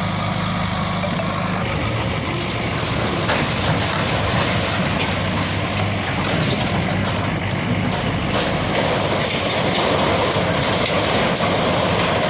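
Bulldozer's diesel engine running steadily, with clattering and scraping noises thickening from about eight seconds in.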